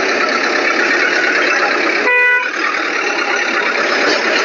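A single short vehicle horn toot about two seconds in, heard over a steady dense background noise.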